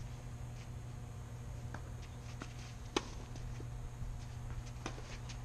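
A few sharp, separate knocks of a tennis ball on racket and court, the loudest about three seconds in, over a steady low background hum.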